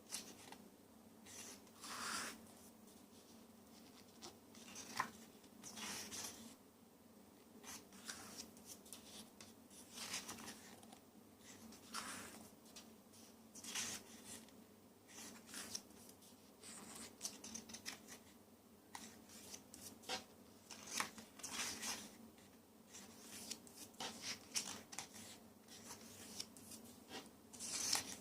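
Paper rustling in short, irregular bursts every second or two as the pages of a photo essay book are handled and turned.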